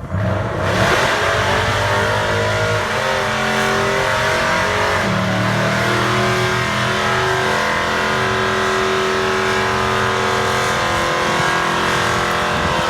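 Pickup truck engines running hard at high revs, coming in abruptly about a second in and holding loud throughout, their pitch drifting slightly up and down.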